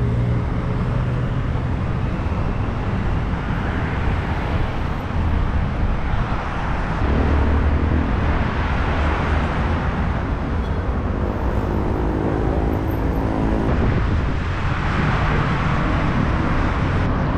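Road traffic going by close at hand: car and heavier vehicle engines and tyre noise in a continuous wash, swelling each time a vehicle passes.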